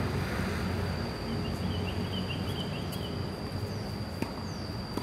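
Ambience of an outdoor tennis court: a steady low background rumble with a faint steady high whine, and a bird chirping for about two seconds. Near the end come two sharp knocks of a tennis ball.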